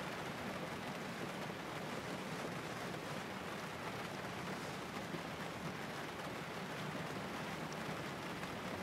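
Steady rain falling on a car's roof and windows, heard from inside the cabin as an even hiss.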